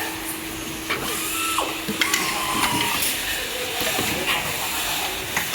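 Air leak testing machinery on a door-closer factory floor: a steady hiss and a low hum that stops about halfway in, with a few sharp mechanical clicks.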